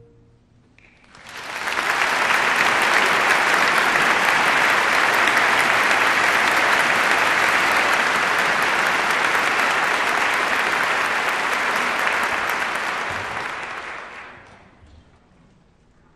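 Theatre audience applauding a ballet number, swelling about a second in, holding steady, then dying away near the end.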